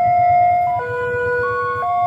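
Railway level-crossing warning alarm sounding: an electronic tone stepping between a few pitches about once a second, over a low rumble.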